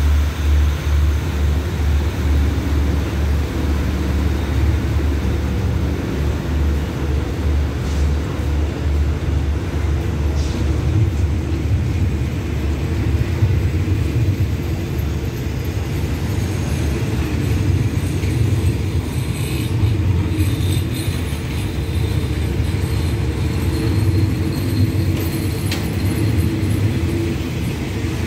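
Passenger train coaches rolling slowly along the track with a low, steady rumble. The rumble pulses regularly for the first several seconds, then evens out.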